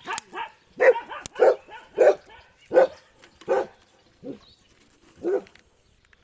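A dog barking repeatedly, about seven short barks, with the gaps lengthening toward the end.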